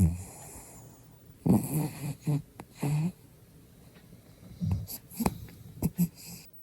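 Bichon Frise dog snoring in its sleep: about six short, pitched snores at irregular intervals, with quiet breathing between them.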